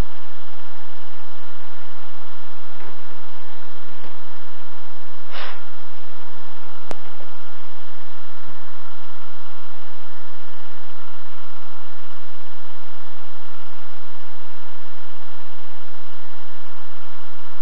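Steady loud hum and hiss with no changing events, a noise track rather than any sound of the train, with one brief crackle about five seconds in.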